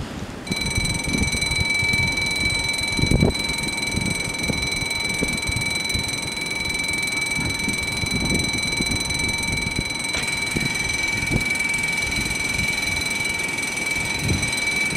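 Level-crossing warning bells start ringing about half a second in and keep up a steady, high-pitched ring, signalling that a train is approaching. Wind gusts on the microphone rumble underneath.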